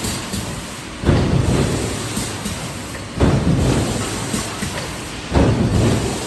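Hydromec HF4000 forging press cycling: three times, about every two seconds, a deep rumbling stroke starts suddenly and fades away.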